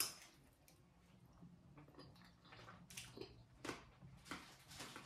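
A spoon clinks on a china plate as a bite of tiramisu is scooped, then faint chewing and mouth sounds follow as the soft cake is eaten, in a few short, quiet smacks.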